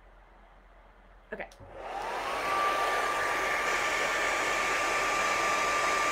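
Handheld hair dryer with a diffuser attachment switched on about a second and a half in. It spins up with a rising whine, then runs steadily with a rush of air and a constant high whine.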